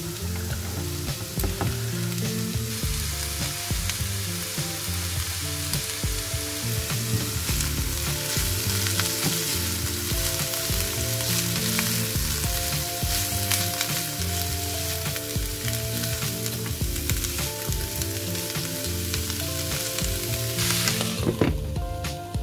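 Chopped white cabbage and grated carrot sizzling in oil in a frying pan, stirred with a wooden spatula. Near the end there is a clink as a glass lid goes on, and the sizzle drops away.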